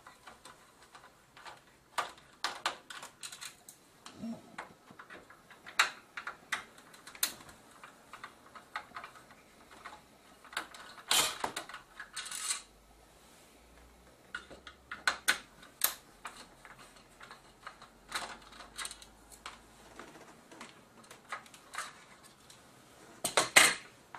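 Irregular clicks, taps and light metallic clinks of a screwdriver and small screws being worked out of the metal backlight chassis of an LCD panel, with a longer rattle of handled metal parts about halfway through and again near the end.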